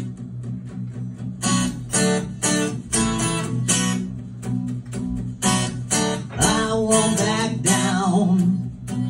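Acoustic guitar strummed in a steady rhythm during an instrumental passage of a song.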